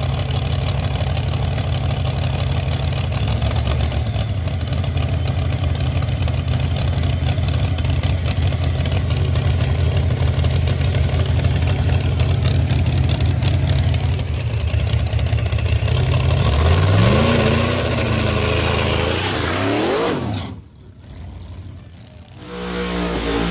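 A Chevy II Nova drag car's V8 idles loud and lumpy, then revs climb in two rising sweeps as the car accelerates hard down the strip. About 20 seconds in the sound drops off sharply, and the engine revs up once more near the end.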